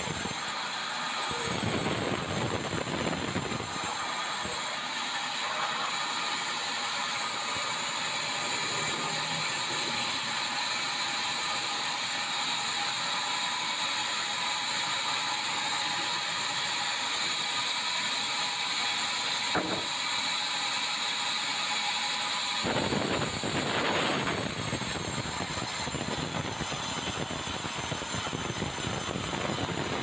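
Band sawmill blade cutting lengthwise through a bengkirai hardwood beam: a steady high whine and hiss. Lower machine noise under it falls away about four seconds in and comes back about three-quarters of the way through.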